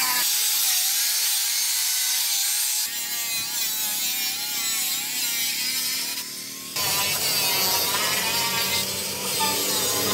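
Electric angle grinder cutting along a rusted steel rocker panel, its motor pitch wavering as the disc bites into the metal. The noise drops off briefly a little past six seconds, then picks back up.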